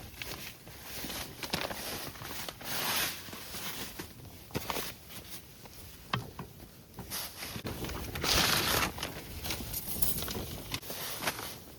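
Irregular rustling and crinkling with scattered light knocks and clicks, as of camping gear being handled; the loudest rustle comes about eight seconds in.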